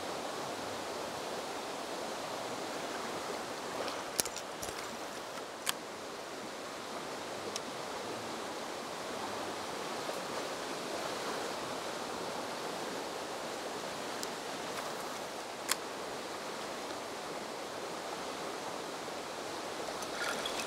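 Shallow mountain stream flowing steadily, an even rush of water. A few sharp clicks are scattered through it.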